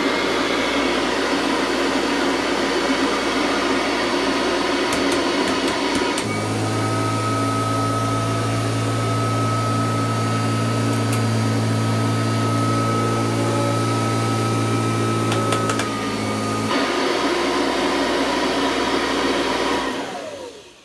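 Kirby Classic III upright vacuum cleaner running on its first test after reassembly, a loud steady whirr. Between about six and seventeen seconds in, a deeper hum and a thin high whine join it. Near the end it is switched off and winds down.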